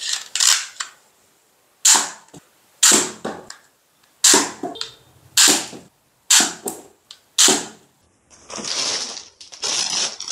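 A spring-powered plastic toy dart rifle firing at a stack of plastic blocks: a series of sharp cracks, about seven, roughly a second apart, as darts are shot and blocks are knocked down. Near the end, a plastic bag crinkles as a toy gun in its packaging is handled.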